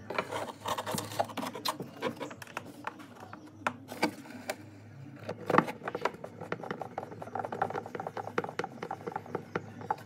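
Hand tools working on a twin-tub washing machine's replacement gearbox as its bolts are tightened: a run of small metal clicks and scrapes that comes thicker in the second half, over a low steady hum.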